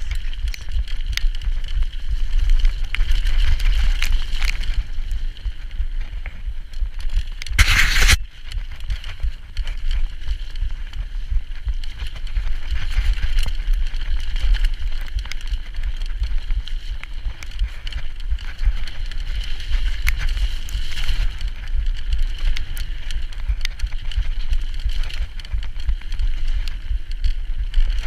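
Mountain bike descending a muddy, snowy trail: a steady low wind rumble on the microphone with tyre hiss and frequent small rattles over the rough ground. About eight seconds in there is a single loud noisy burst lasting about half a second.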